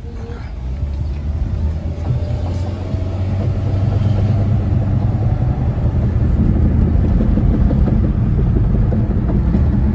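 A car driving and gathering speed, its steady low hum and road noise growing louder over the first few seconds and then holding: the drone of a failing front wheel hub bearing, which the riders had narrowed down to the wheel bearing or the CV axle.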